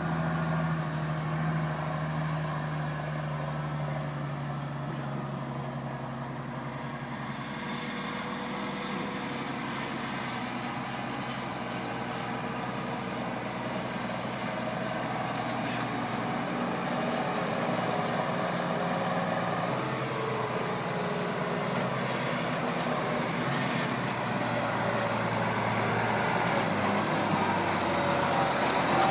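Case IH 7230 tractor's six-cylinder diesel engine running under load as it hauls a full trailer of chopped maize silage across the field, growing louder as it draws near toward the end.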